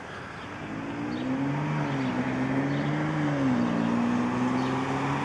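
An engine running with a steady droning pitch, growing louder over the first second or two and dipping in pitch twice.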